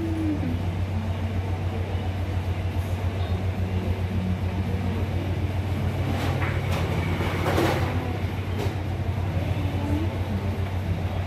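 A steady low hum with a fast flutter, like a running motor or fan, with a brief rustle about seven seconds in.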